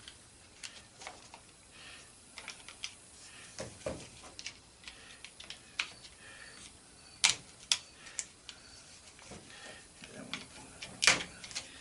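Scattered light clicks and taps of small metal and plastic parts as an angle grinder's carbon brushes are worked out by hand, with a few sharper clacks about seven seconds in and again near the end.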